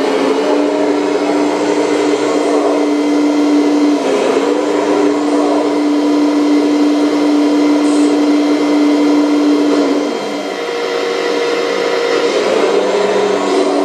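Hydraulic system of a radio-controlled Volvo EC480D model excavator running, a steady, loud motor-pump whine that briefly breaks about four seconds in and dips and changes pitch around ten seconds in as the machine swings and works its grapple. The model still has its older, non-silent hydraulic pump.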